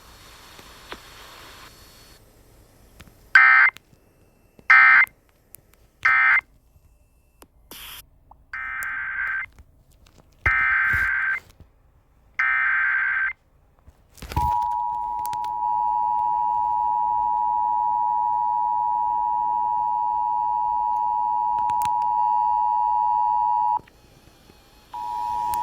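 Emergency Alert System data and tones: three short screeching data bursts (the end-of-message code), then three longer data bursts (the SAME header of the next alert), then the steady two-tone EAS attention signal held for about nine seconds. The tone breaks off briefly and starts again near the end.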